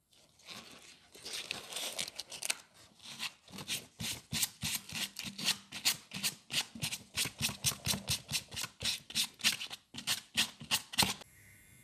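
Abrasive pad scrubbed back and forth over the taped-off band of a dry suit sleeve, soft and uneven at first, then about four quick strokes a second, stopping abruptly near the end: the surface is being scuffed before the new wrist seal is glued on.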